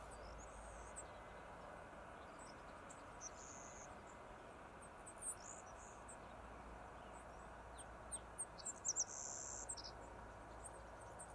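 Small birds chirping and whistling in short, high notes over a faint, steady outdoor hiss, the calls coming thicker and louder about eight to ten seconds in.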